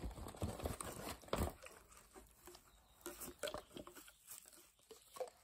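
Perfume bottles being handled and set down: scattered light clicks and knocks, bunched in the first two seconds and again a few seconds in.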